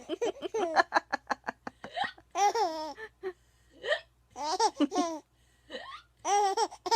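A baby laughing hard, first in a quick run of short high-pitched bursts, then in longer squealing peals, with a woman's short hiccups between them; the hiccups set off the laughter.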